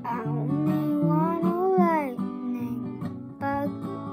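A girl singing one long note that swoops up and down, over a strummed acoustic guitar; after about two seconds the voice stops and the guitar carries on alone.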